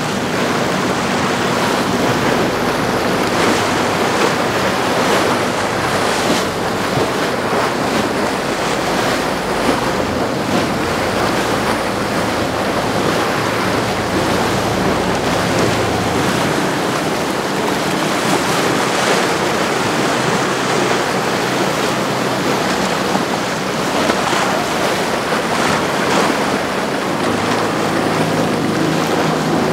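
Rough inlet water washing and breaking, with wind buffeting the microphone. Under it runs the low, steady drone of passing boat engines.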